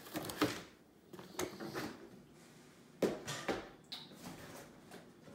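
Plastic storage tote being handled and its lid opened: a few scattered knocks and scrapes of plastic.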